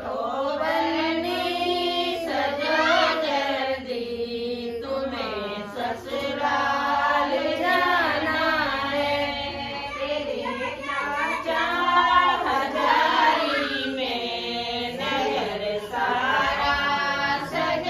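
A woman singing a folk song without accompaniment, drawing out long, wavering held notes.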